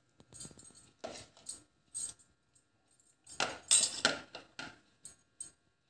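A metal utensil clinking and scraping against a bowl and plate while whipped cream is scooped and dropped onto a cake layer: scattered short knocks, with a louder run of scrapes about halfway through.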